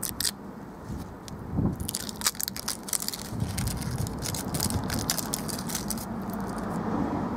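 Flashband self-adhesive flashing strip crackling and crinkling as its backing film is peeled off and the strip is handled. There is a brief crackle at the start, then a run of quick crackles from about two seconds in to about six seconds in.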